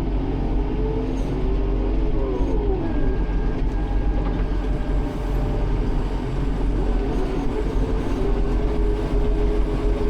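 Tractor engine running steadily, with its pitch dipping about two seconds in and climbing back up later.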